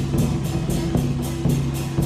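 Temple procession drum troupe beating large drums on a parade float, a steady beat of about four strikes a second with bright, cymbal-like attacks, over held low notes of accompanying music.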